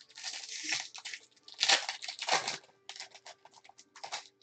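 Foil wrapper of a 2015 Panini Prizm baseball card pack being torn open by hand and crinkled, in a run of rustling tears with the loudest a little under two seconds in.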